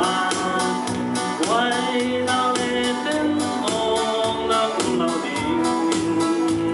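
A man singing a gospel song into a microphone, amplified through the hall's loudspeakers, over an instrumental accompaniment with a steady beat.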